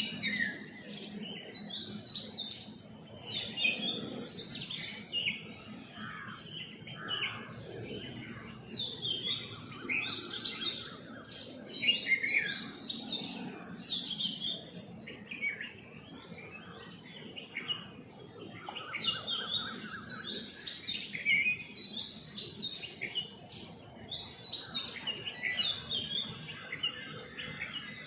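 Several small birds chirping and tweeting in a continuous morning chorus: many short, overlapping calls, with a few brief rapid trills among them.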